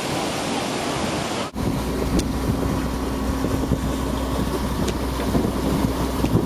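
Wind and water rushing past the microphone, then after a cut about a second and a half in, a boat's engine running steadily as a low hum under wind buffeting the microphone.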